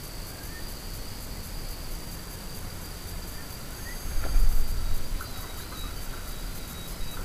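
Steady high-pitched insect chirring, with a few faint short chirps and a low rumble about four seconds in.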